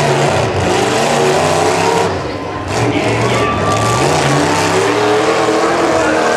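Demolition derby pickup trucks' engines revving up and down as the trucks drive and push against each other.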